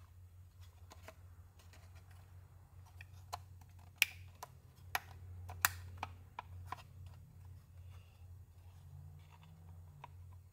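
Scattered light clicks and taps of hard plastic dash parts being handled while a boost gauge is pushed into a press-fit mount, with a few sharper clicks about four to six seconds in, over a steady low hum.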